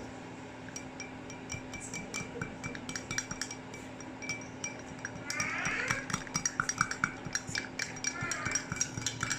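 A spoon stirring coffee and clinking against the side of its container in many small, quick, ringing taps, dissolving the palm sugar just added.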